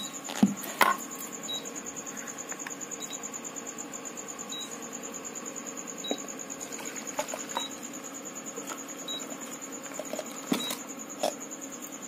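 Induction cooktop beeping faintly and briefly about every second and a half, over a steady high-pitched electrical whine. A few clinks of steel vessels come near the start and again near the end.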